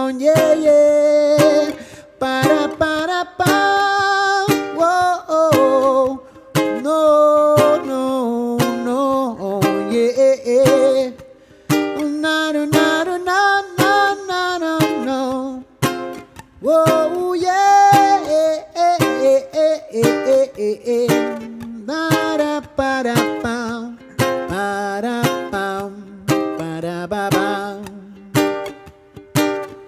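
A man singing a slow song, accompanying himself on a small acoustic string instrument that he strums and picks, with short breaks between sung phrases.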